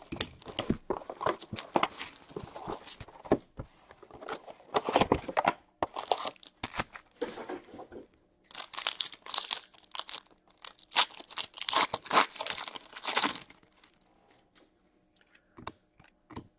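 Plastic wrap and cardboard of a box of Upper Deck Allure hockey cards crackling and tearing as it is ripped open, then a card pack wrapper torn open in several longer, louder rips about halfway through. It goes quiet for the last couple of seconds.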